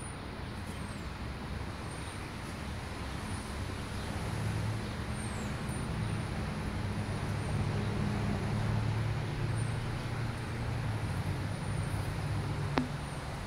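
Road traffic: a vehicle's low rumble swells and fades over a steady hiss. A single sharp click near the end.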